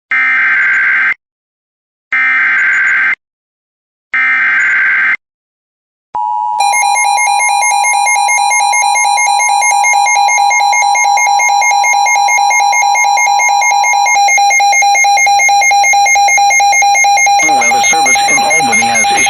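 Emergency Alert System tones: three one-second bursts of warbling SAME header data, about two seconds apart. Then the two-tone EAS attention signal sounds steadily with a fast pulsing buzz over it. The higher tone drops out about two-thirds of the way in, leaving the lower tone alone, and a synthesized announcer voice starts under it near the end.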